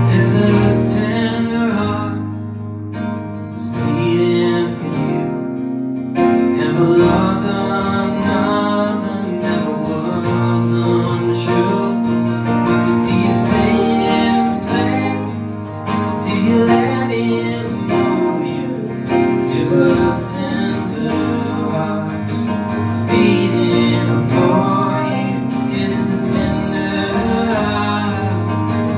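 Live acoustic country music: two strummed acoustic guitars with keyboard and upright bass, and a man and a woman singing.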